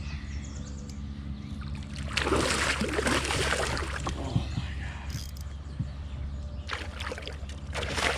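Water splashing and sloshing around a kayak in two stretches, about two seconds in and again near the end, over a steady low hum.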